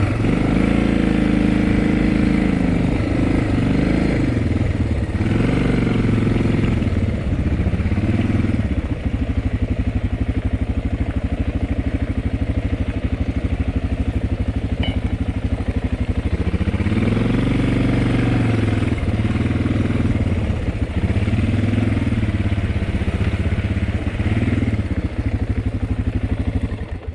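Dirt bike engine running under way on a trail, its revs rising and falling again and again with the throttle and gear changes.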